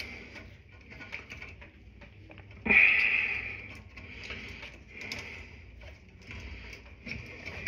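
Small clicks and rattles of electrical wires and hand tools being handled while a box is spliced, with a louder scraping rush about three seconds in that fades over a second or so.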